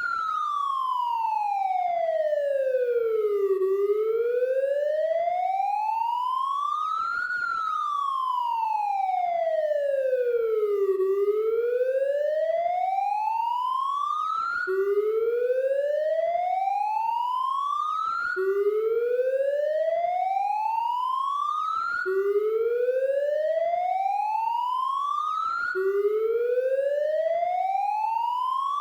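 Electronic police siren wailing, its pitch sweeping slowly down and back up, each sweep lasting a few seconds. About halfway through it switches to repeated rising sweeps, each climbing for a few seconds and then dropping back abruptly to the low note.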